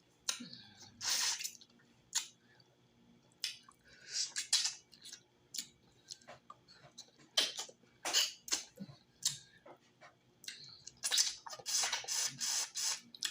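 Wet slurping, sucking and lip-smacking from a person eating cooked cow foot and sucking the juice from the bone, in irregular bursts with short pauses between them.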